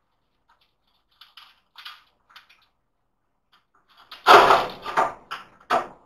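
Sheet-metal side panel of a Dell Vostro desktop tower being unlatched and slid off the case: a few light clicks, then a loud scraping clatter a little after four seconds in and two more sharp knocks near the end.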